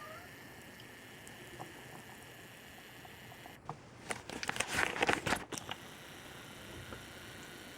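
Faint steady hiss, then about halfway through roughly two seconds of crackling and rustling, typical of the phone or camera being handled and rubbed against the microphone.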